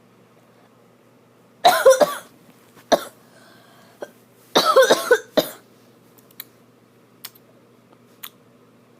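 A person coughing in fits: a burst of several coughs about two seconds in, a single cough, then a longer run of coughs about five seconds in, followed by a few faint clicks.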